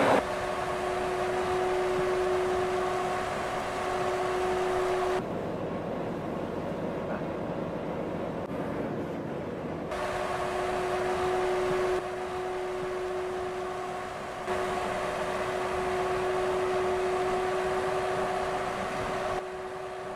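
Heavy truck driving at steady speed: even road and running noise with a steady hum, changing abruptly several times.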